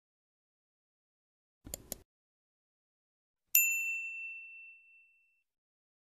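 Subscribe-button animation sound effect: two quick clicks, then, about a second and a half later, a single bright notification-bell ding that rings out and fades over about a second.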